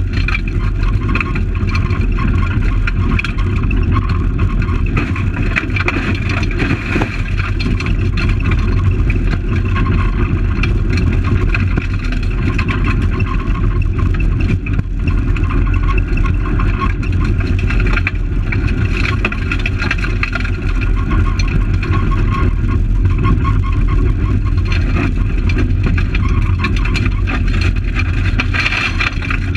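Fiat Palio rally car's engine heard from inside the cabin, driven hard on a gravel stage with revs rising and falling through gear changes, and many short ticks of gravel striking the car.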